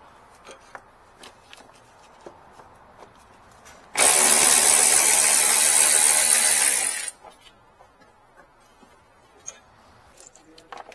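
A power tool runs in one loud burst of about three seconds, starting and stopping abruptly, with a bright hissing sound, amid light clicks and taps of tool handling.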